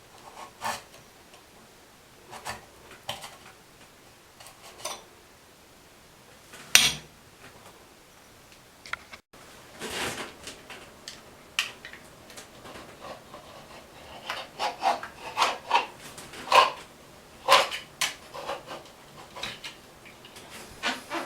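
Metal shower valve parts and a hand tool clinking, knocking and scraping as the shower valve is taken apart to get at the cartridge. Irregular clinks, with one sharp knock about seven seconds in and a busier run of them later on.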